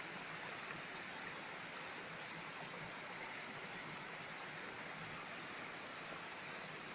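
Faint, steady running water from a small stream flowing over a rock slab.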